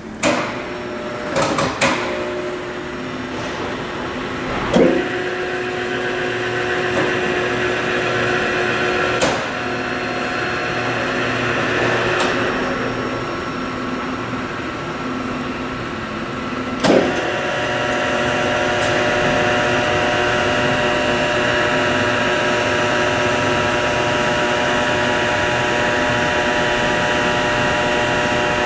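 P&H WP12 welding positioner's electric drive motors and gearing making a steady whine as the heavy table is power-tilted. Several sharp clunks come as the drive starts and stops, and the whine changes after each; from about two-thirds of the way in it steadies and grows a little louder.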